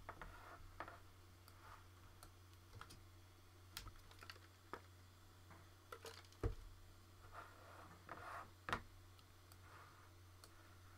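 Faint, irregular clicking of a computer keyboard and mouse, with two louder clicks about six and a half and nine seconds in, over a steady low hum.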